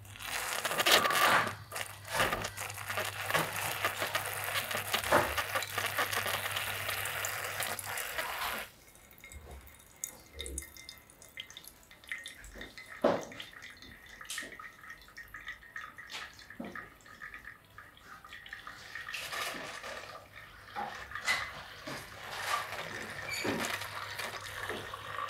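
TONE Touch 03 brewer pouring hot water from its showerhead onto coffee grounds in a paper filter, over a steady low machine hum. The pour stops about eight seconds in, leaving scattered drips of coffee into the glass server, and a second pour starts with the hum about two-thirds of the way through.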